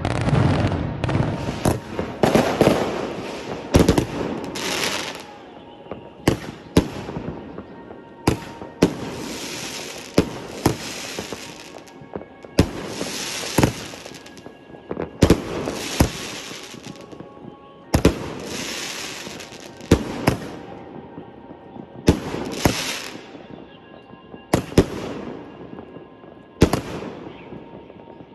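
Fireworks: rockets launching and shells bursting overhead, a string of sharp bangs about every one and a half to two seconds, each followed by about a second of hissing, crackling sparks.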